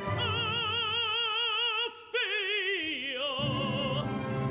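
Operatic tenor singing a long high note with wide vibrato over the orchestra. He breaks off just before two seconds in, then starts a new phrase that slides downward. Low orchestral chords swell in near the end.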